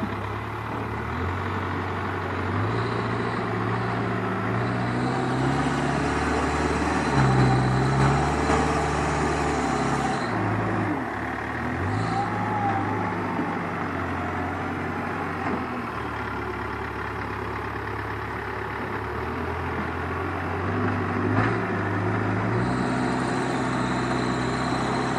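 JCB backhoe loader's diesel engine working under load, its speed rising and falling repeatedly as it pushes soil with the front loader bucket.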